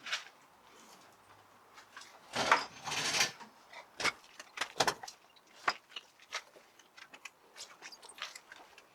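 Scattered knocks and clicks from things being shifted and handled in a small garage, with a short scraping rush about two and a half seconds in that is the loudest sound.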